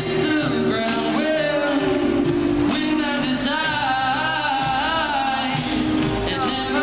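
Live song: a man singing to acoustic guitar, holding long wavering notes about halfway through.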